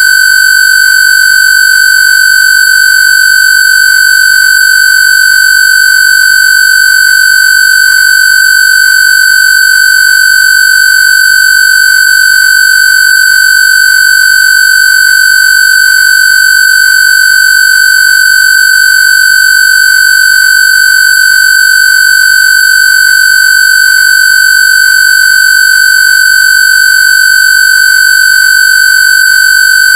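A loud, steady electronic square-wave tone: a single shrill, buzzy high pitch held without any change. It is a generated Rife/AWG-style frequency tone.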